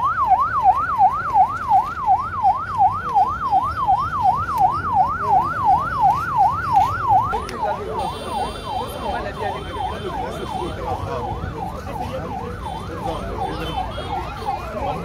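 Ambulance's electronic siren wailing in a fast, even up-and-down yelp, loud at first and then fainter after about seven seconds.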